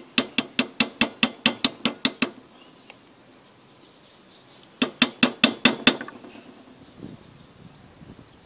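Quick light hammer taps on the kit's spark plug tool, driving a new crankshaft seal evenly into a 66cc motorized bike engine's crankcase. Two runs of sharp metallic taps at about six a second: a longer run of a dozen or so, then after a pause a shorter run of about eight.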